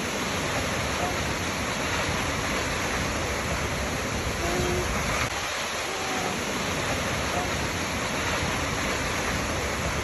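Waterfall: a steady, even rush of falling water, with a few brief faint tones in the background about a second in and again around the middle.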